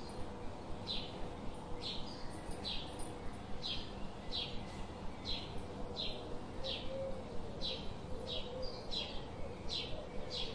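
A bird chirping over and over, each a short falling chirp, about one and a half a second, at an even pace.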